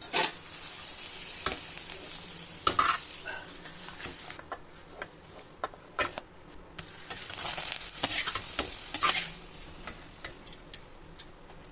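Appalams (papads) deep-frying in hot oil: a sizzle that swells in several bursts, loudest about three-quarters of the way through.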